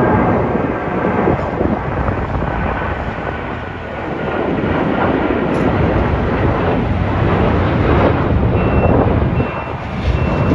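Loud, gusty rushing noise with a heavy low rumble. From about eight and a half seconds in, a vehicle's reversing alarm beeps about every 0.7 s.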